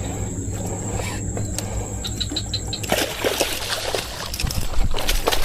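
Water splashing and sloshing, busier and louder from about halfway in, over a steady low hum.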